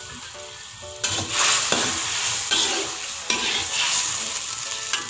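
Metal spatula stirring and scraping a thin tomato sauce in a metal wok. It starts about a second in as a run of several rough scrapes.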